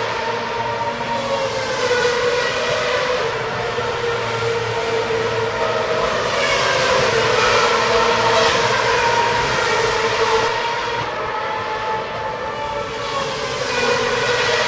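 Racing cars' high-revving engines running flat out as several cars pass one after another. Engine notes rise and fall over a steady drone of engines, swelling loudest around the middle.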